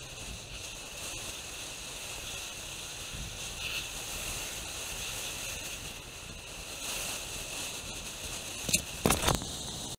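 Steady hiss of wind and rolling bicycle noise on a handlebar-mounted camera, with a few sharp knocks or rattles near the end.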